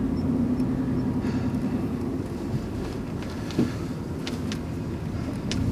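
Car engine and road noise heard from inside the cabin while driving: a steady hum that drops back about two seconds in and picks up again near the end.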